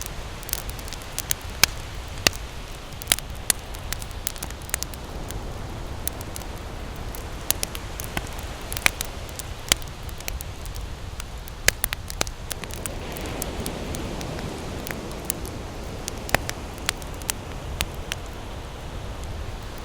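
Wood fire burning in a fireplace, crackling: irregular sharp pops and snaps over a steady low hiss. A softer rushing sound swells for about two seconds around two-thirds of the way through.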